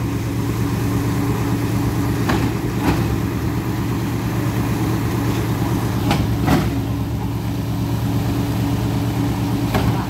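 Concrete pump truck's engine idling steadily, with a few short sharp knocks over it.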